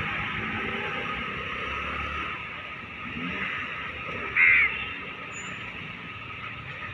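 A crow gives one short, loud caw about four and a half seconds in, over a steady background hiss.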